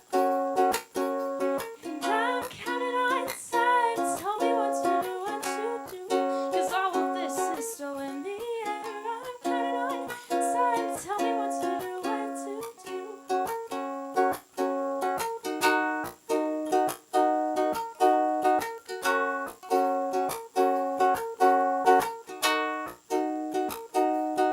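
Live song accompaniment on a strummed acoustic string instrument, chords struck in a steady rhythm. Over the first half a voice sings without words, gliding between notes; after that the strumming carries on alone.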